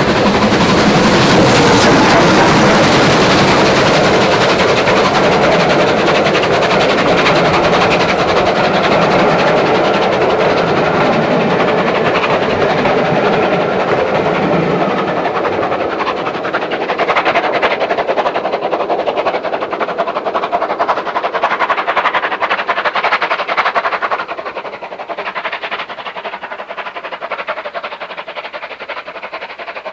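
Three-cylinder Bulleid Pacific steam locomotive, Rebuilt Battle of Britain class, running past at close range with its coaches. The passing train is loud and dense, with a run of sharp clicks as the coaches go by. It drops away sharply about three quarters of the way through as the train recedes.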